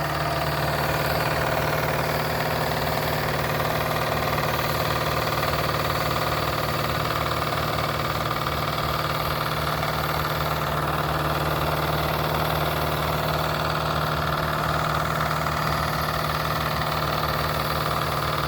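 Wilesco D21 model steam engine running steadily under steam, turning a 3D-printed Baker fan.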